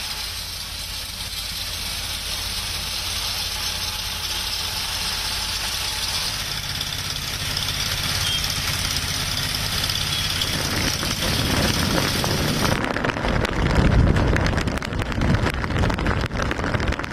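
Motor engine running steadily, then a louder, uneven low rumble from about thirteen seconds in.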